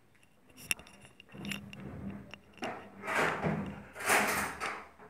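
Kitchen utensil handling: a few light clicks, then three scraping swishes about a second each, as a fork is readied to swirl cake batter in a metal tin.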